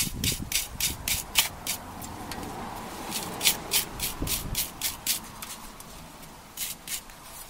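Small wire brush scrubbing rust and grime from a cooling fan's hub around the motor shaft, in quick back-and-forth strokes about four or five a second. It pauses briefly twice.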